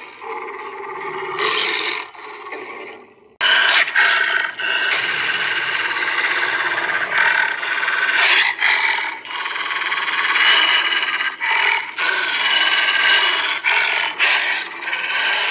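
Animatronic werewolf Halloween prop growling and roaring through its speaker, starting abruptly about three seconds in and running on continuously.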